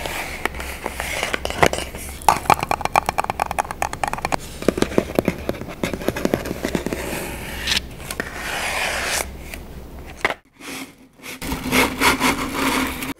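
Fingernails scratching and tapping rapidly on the cardboard tube of a Pringles can, a dense run of small rasping clicks. Near the end, the stack of chips slides out of the can onto a wooden board.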